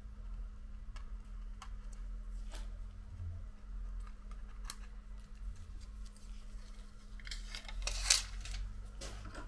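Faint clicks and taps of small tools and phone parts being handled on a workbench, with a brief louder scraping rustle about eight seconds in, over a low steady hum.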